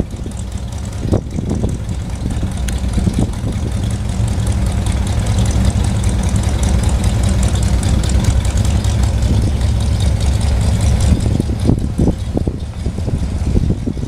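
A car-pickup's engine running with a steady low rumble as the truck is manoeuvred at low speed. It gets louder and rougher a few seconds in, then eases off near the end.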